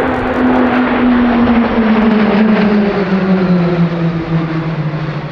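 Formation of Pilatus PC-21 single-engine turboprop trainers passing overhead, a steady propeller drone that falls slowly in pitch as they go by.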